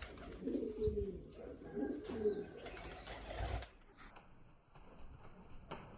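Pigeons cooing in low, wavering calls, repeated several times, stopping a little past halfway, after which only faint background remains.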